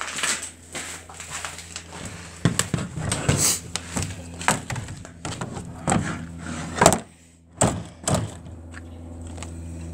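Knocks and clatters of a chicken coop's grey panel door being handled and pushed shut, with one loud knock just before seven seconds in.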